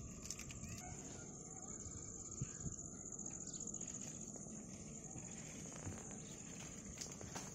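Steady high-pitched drone of insects, with a fainter steady trill lower down and a low rumble underneath.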